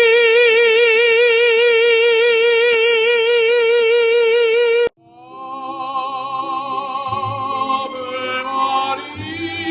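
A singer holds one long, high operatic note with wide vibrato, which cuts off abruptly about five seconds in. A recorded song with a sung melody then fades in, and a bass line joins about two seconds later.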